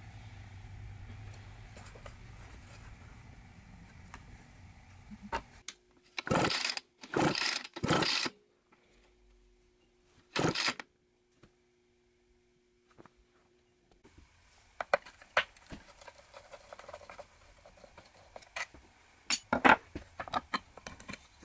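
Recoil starter of a 1964 Homelite XL-100 gas circular saw pulled four times, each pull a short whirr of the two-stroke engine turning over without firing: there is no spark. Afterwards, clicks and clatter of the saw being handled, loudest near the end.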